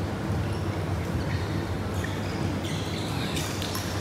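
Badminton hall ambience: a steady low hum with faint background voices, and a few sharp ticks in the second half, from play on the nearby courts.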